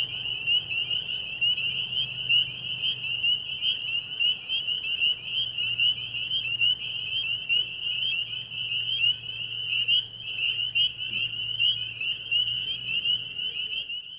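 Crickets chirping in a dense, continuous chorus: a high, rapid pulsing trill that keeps on without a break.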